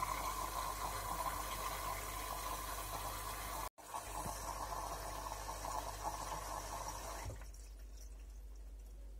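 Water hissing into the drum of a Bosch Classixx 6 front-loading washing machine through its inlet valve as it fills for the rinse; the inflow stops suddenly about seven seconds in.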